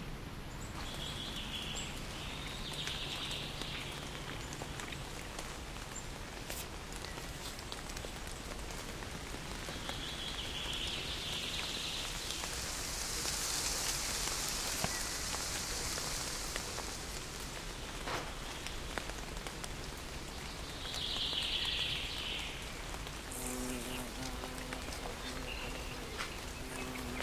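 Forest ambience: a steady rustle of wind through leafy trees, with short chirps from birds or insects now and then. A low steady hum with overtones comes in near the end.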